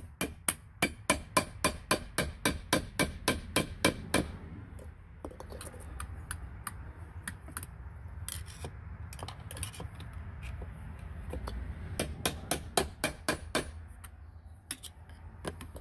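Hammer tapping the end of a flathead screwdriver wedged between a jet-ski pump's old wear ring and its plastic housing, knocking the stuck ring loose. A quick run of sharp taps, about three or four a second, for the first four seconds, then a long pause with only a few light clicks, then a second run of taps about twelve seconds in and one last tap shortly after.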